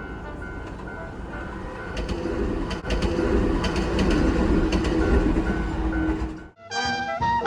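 Japanese level-crossing bell ringing its 'kan-kan' at about two dings a second while an Ohmi Railway train passes, with a rumble and clacking of wheels over the rails that builds up about two seconds in. Everything cuts off suddenly near the end.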